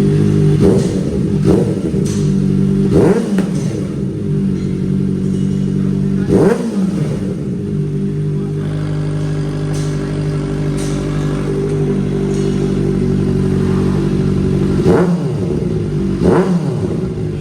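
Kawasaki ZX-4RR's 399 cc inline-four idling through an aftermarket slip-on muffler, blipped about six times, each rev rising and falling quickly in pitch, the strongest about six and a half seconds in.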